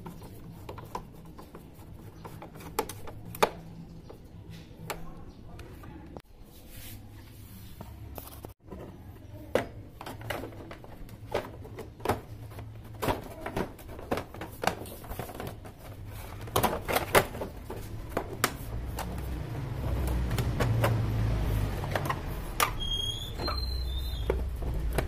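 Irregular clicks and knocks of a screwdriver working the screws of a motorcycle's plastic body panels and of the panels being handled and pulled off. A low rumble grows louder over the last few seconds, and a few short high squeaks sound near the end.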